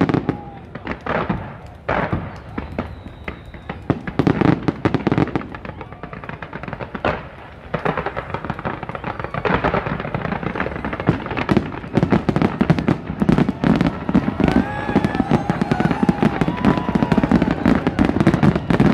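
Fireworks going off: a few separate bangs in the first seconds, then from about eight seconds in a dense, unbroken crackle of many bursts and crackling stars.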